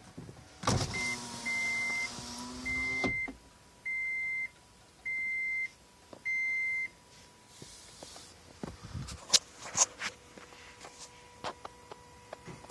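A 2010 Toyota Prius before the engine runs: a thump and a brief whirring, then six electronic beeps at one pitch, about one a second, followed by scattered sharp clicks and knocks.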